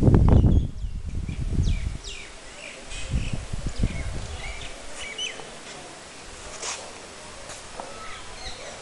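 Birds chirping outdoors, many short, quick calls and little up-and-down whistles. A low rumbling noise on the microphone is loudest in the first second or so and comes back briefly a few seconds in.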